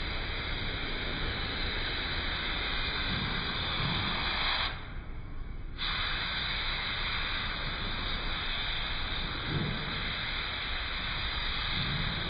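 Air-fed gravity-cup paint spray gun hissing steadily as it sprays paint onto a truck hood. The hiss stops for about a second around five seconds in, then resumes.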